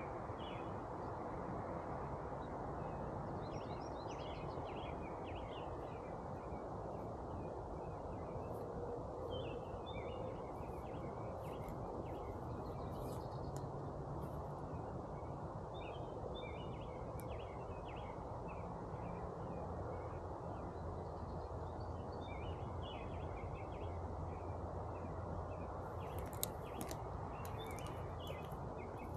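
Songbirds chirping in short, repeated phrases over a steady outdoor hiss.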